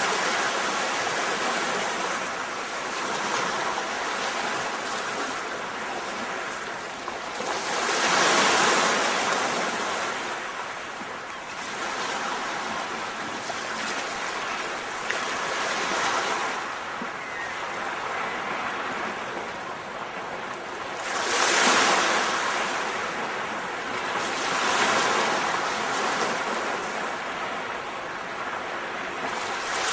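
Ocean surf: waves washing in and falling back in slow swells every several seconds, with a steady hiss between them.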